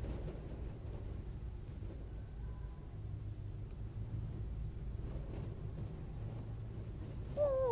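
A steady, high insect trill of crickets in the grass over a low outdoor rumble. Near the end a man starts a loud wolf howl through cupped hands, a hunter's call to draw wolves, dipping slightly in pitch and then held on one note.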